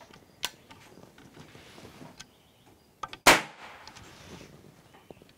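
A No. 11 percussion cap fired on an unloaded percussion sidelock muzzleloader: a light click about half a second in as the hammer is drawn to full cock, then, about three seconds in, a single sharp crack as the hammer falls and the cap goes off. Popping a cap with no charge in the barrel clears oil and debris from the flash channel before loading.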